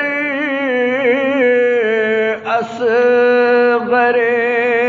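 A man singing Urdu devotional verse with no instruments, drawing out long, ornamented held notes with a wavering pitch. There are two long phrases, with a brief breath between them about halfway through.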